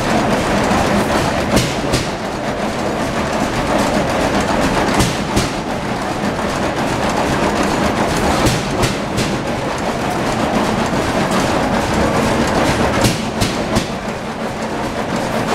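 Old stationary engines running in a large engine barn: a loud, steady mechanical din with scattered sharp clanks.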